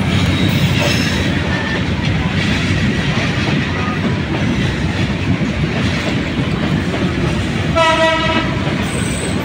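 Bangladesh Railway intercity passenger coaches running past on the track: a steady noise of wheels on rails. A short horn blast sounds about eight seconds in.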